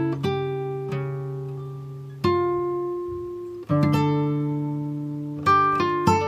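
Background music: a plucked string instrument playing slow chords, each struck and left to ring and fade, with a gap about two seconds in and a quicker run of notes near the end.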